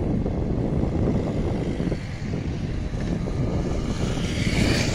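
Steady low rumble of a passenger train in motion, heard from aboard, with a higher hiss building near the end.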